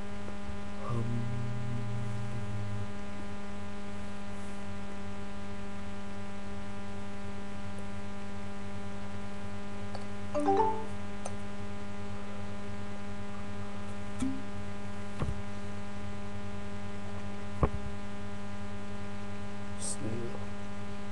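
Steady electrical hum with a stack of overtones in the webcam's audio, unchanging throughout. A few short clicks and knocks sound over it, the most prominent about halfway through and a sharp one later on.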